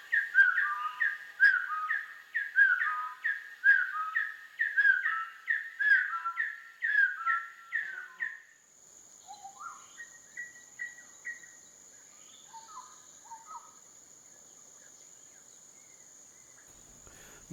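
Bar-backed partridge calling: a run of loud whistled notes, each sliding down in pitch, about two a second, that breaks off about eight seconds in. Fainter scattered whistles follow over a steady thin high tone.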